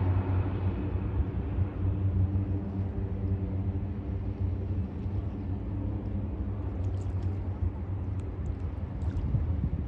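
De Havilland Turbo Beaver floatplane's turboprop engine and propeller droning steadily at climb power as it flies away after takeoff.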